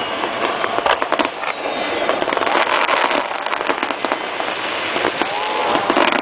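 Daytime star mine fireworks: a rapid, continuous string of shell bursts and crackling, with a short whistle rising about five seconds in.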